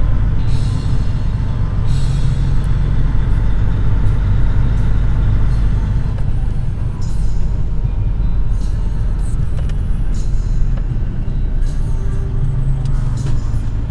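Heavy truck diesel engine running with a steady low rumble while driving, heard from inside a truck cab, with short hissing and rattling noises now and then.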